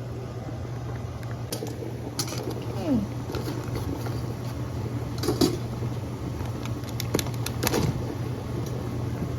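Pot of lobsters boiling on the stove, under a steady low hum, with a few light clicks and knocks scattered through.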